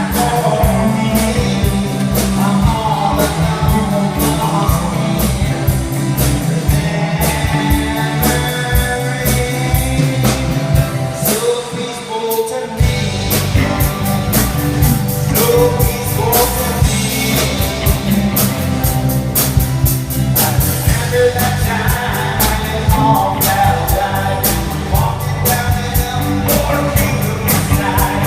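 Live rock band playing with a singer, drums keeping a steady beat. The bass and drums drop out for about a second partway through, then come back in.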